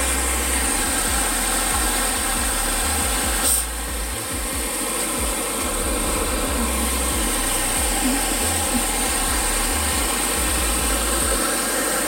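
Creek water rushing over rocks in a steady wash, with wind buffeting the microphone in irregular low rumbles and one brief click about three and a half seconds in.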